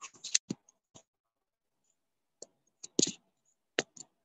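Scattered sharp clicks and light knocks of a phone being handled, fingers touching and brushing it close to its microphone. They come in a cluster near the start and again around three to four seconds in.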